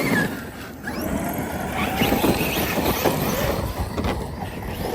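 Electric motor of a large RC monster truck whining as it revs up and down with the throttle, the pitch wavering. The truck is stuck and sinking in mud.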